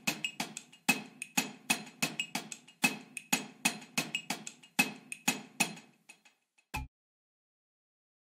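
Background music made of short wood-block-like percussive ticks, about four a second, stopping about six seconds in, with one last low hit about a second later.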